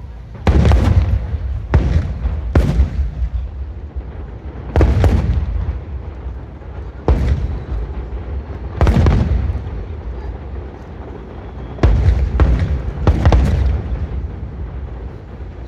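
Fireworks display: aerial shells bursting in an irregular series of about ten booms, some in quick succession, each leaving a low rumbling tail.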